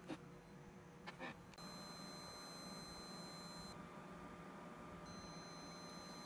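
Faint high-pitched whine from the output inductor coils of a TPA3116D2 class-D amplifier board driven into clipping with a 1 kHz sine. It starts about a second and a half in, its highest tones drop out for about a second in the middle and then return.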